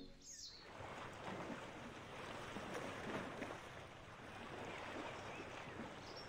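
Faint beach ambience: small waves lapping gently on the sand of a calm bay, a soft, even wash.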